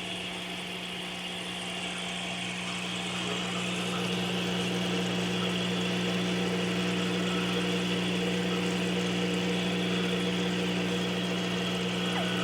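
Steady electrical hum and whir of turtle-tank equipment, a low mains-type drone with a hiss above it, getting a little louder about four seconds in.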